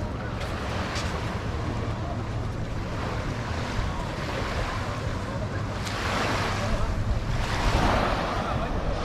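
Small waves washing onto a beach, a wave breaking louder from about six seconds in, with wind on the microphone.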